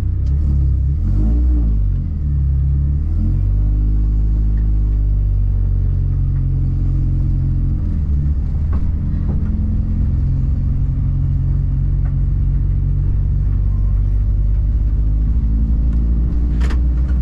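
Car engine running hard with a strong low drone; its revs dip and rise several times in the first few seconds, then hold fairly steady.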